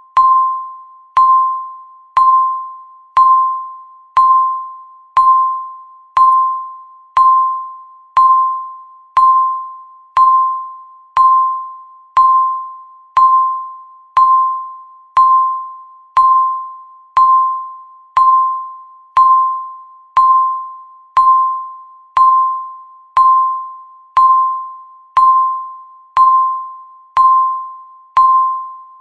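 Electronic countdown-timer beep: a single tone sounding once every second, each beep starting sharply and fading away.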